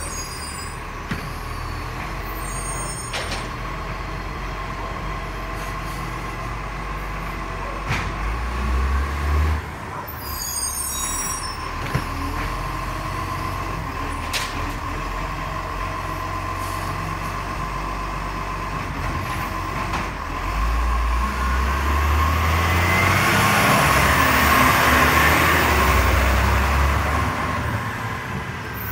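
Garbage truck's diesel engine running with a steady high whine and a few sharp knocks; it revs briefly about a third of the way in. Near the end it grows louder for several seconds as the truck pulls away.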